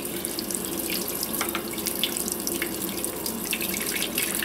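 Flood coolant from a Tormach PCNC1100 mill's coolant system flowing steadily out of Loc-Line nozzles in thin, weak streams and splashing below, over a steady low hum.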